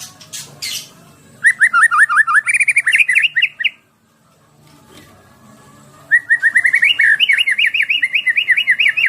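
White-rumped shama (murai batu) singing two rapid trilled phrases of quickly repeated sweeping notes. The first comes about a second and a half in and lasts about two seconds. The second starts about six seconds in and rises a little in pitch as it goes.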